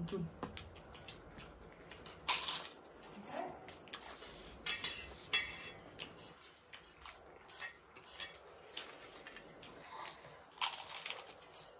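Cutlery clinking and scraping on a plate during a meal: scattered, irregular clicks and short scrapes, with a few louder ones about two, five and eleven seconds in.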